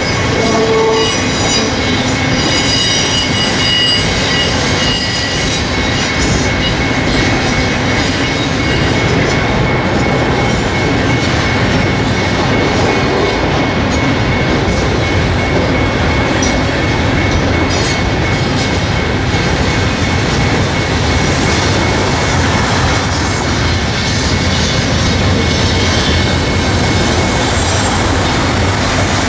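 Double-stack intermodal freight train rolling steadily past: a continuous loud rumble of wheels and cars on the rails, with high-pitched wheel squeal in the first few seconds.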